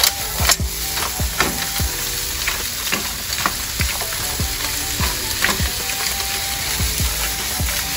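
Mussels and shrimp stir-frying in a hot pan, a steady sizzle. A utensil stirring them knocks and scrapes against the pan irregularly, about once or twice a second.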